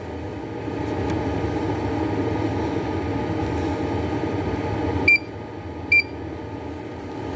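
A steady rushing noise runs for about four seconds and then stops abruptly. It is followed by two short, high electronic beeps about a second apart: keypad beeps from a bench function generator as its amplitude setting is selected and adjusted.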